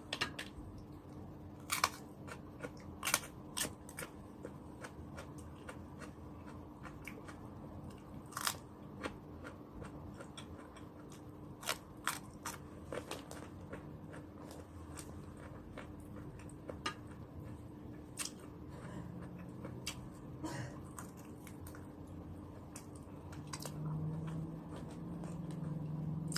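Close-miked mukbang eating: a person biting and chewing food, with scattered sharp crunches and mouth clicks over a faint steady hum.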